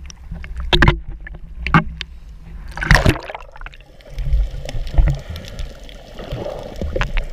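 Water slapping and splashing against an action camera held at the surface, with several sharp splashes in the first three seconds. About halfway through, the camera goes under, and the sound turns to a dull underwater rumble with knocks and gurgles.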